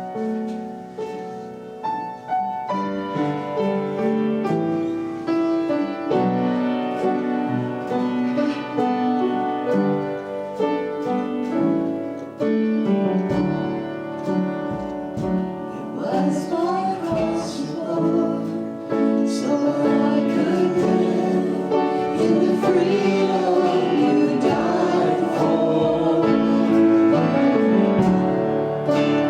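Church worship music: keyboard chords played alone at first, then singing voices joining about halfway through, the music building louder toward the end.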